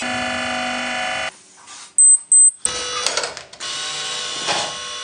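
Hydraulic butt fusion welding machine running with a steady whine that cuts out about a second in. Two short, loud high beeps follow, and then the machine sound comes back.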